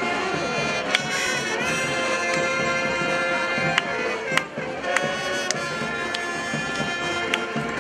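Street brass band playing: trombones and trumpets hold and move between notes, with a few sharp percussion hits.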